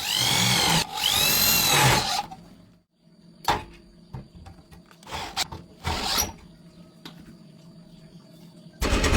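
Small power-tool motor run in two short bursts, its pitch rising and falling each time as it speeds up and runs down. Then a few scattered knocks, and a short, loud, noisy burst near the end.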